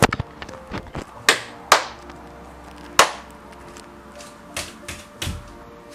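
Palms slapping on the thighs, then bare feet stamping on a wooden parquet floor: a series of separate sharp slaps and duller thuds, spaced about half a second to a second and a half apart.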